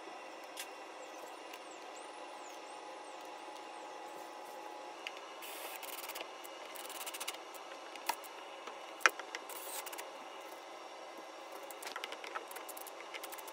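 Brushless cordless drill driving switch-plate screws in a few short bursts in the second half, with a sharp click about nine seconds in.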